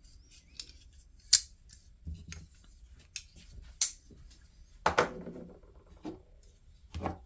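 Folding knives being handled, giving a few separate sharp metal clicks and clacks with fainter ticks between them. The loudest click comes about a second in.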